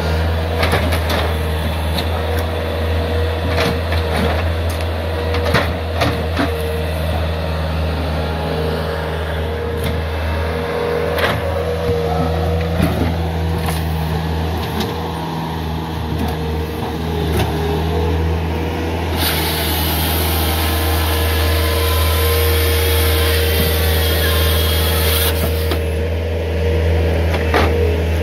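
Bobcat S300 skid steer's diesel engine running steadily under hydraulic load, with scattered knocks as logs are gripped and handled. About two-thirds of the way through, a hiss of the grapple saw's chain cutting through a log comes in for about six seconds, then stops.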